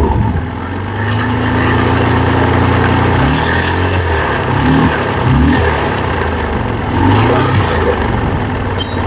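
TVS Apache RTR 150's single-cylinder four-stroke engine idling steadily, then revved in several short blips from about three seconds in. The engine still makes an abnormal noise after repeated engine servicing, which the mechanic traces to the worn bearings inside the engine.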